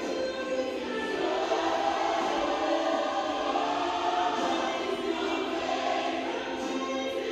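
Choir music playing: many voices singing a song together without a break, which the dancers rehearse to.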